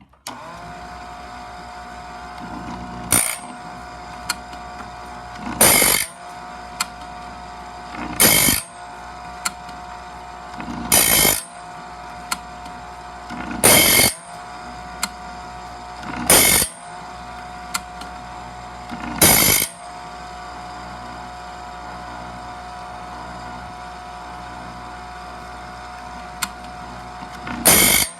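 Electric sharpener with a small diamond wheel spins up and runs with a steady whine. It grinds a bandsaw blade's teeth one after another in short harsh strokes, about every two and a half to three seconds, with light clicks between them as the blade is pulled back to the next tooth. After a longer pause, one more tooth is ground near the end.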